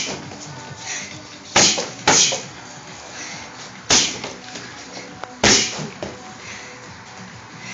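Strikes landing on a free-standing punching bag: four sharp smacks, two close together about one and a half seconds in, another near four seconds and one more a second and a half later.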